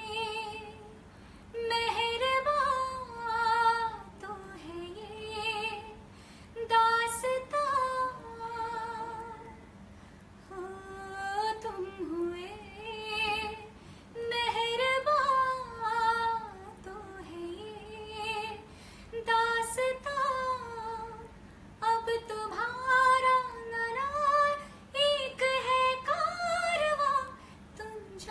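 A woman singing a Hindi film song solo, in phrases with short pauses between them.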